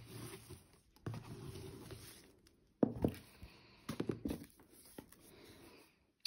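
A satin ribbon being pulled loose and the cardboard flaps of a gift-box advent calendar being swung open: soft rustling and sliding, then a few light knocks of cardboard about three and four seconds in.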